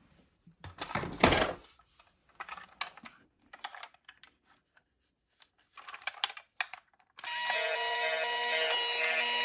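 Light plastic clicking and rattling of a toy police car being handled, in short scattered bursts. About seven seconds in, the toy's electronic siren sound switches on suddenly, sliding up briefly and then holding steady.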